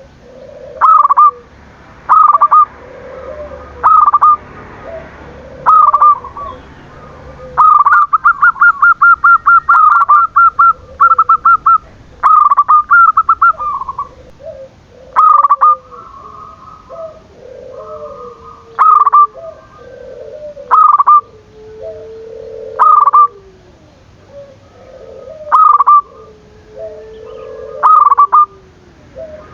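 Zebra dove (perkutut) cooing song: loud, clipped call phrases repeat about every two seconds with softer rolling coos between them. A fast stuttering run of notes comes about a third of the way in.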